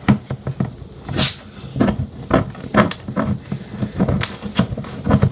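Knife blade clicking and scraping against the tin of a corned beef can as it is pried open along the scored strip, where the opening key has failed. Irregular clicks and scrapes, with a sharp, high scrape about a second in.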